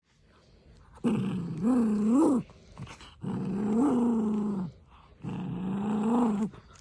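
Small poodle growling in three drawn-out, pitched growls, each over a second long, with the pitch rising and falling within them. It is a possessive growl from a dog holding a paper receipt in its mouth as a hand tries to take it.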